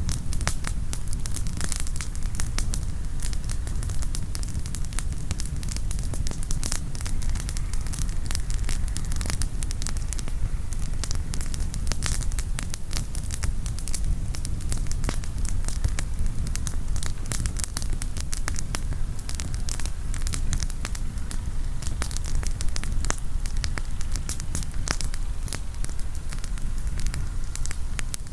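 Wood campfire burning, with dense, irregular crackles and sharp pops of the firewood over a steady low rumble.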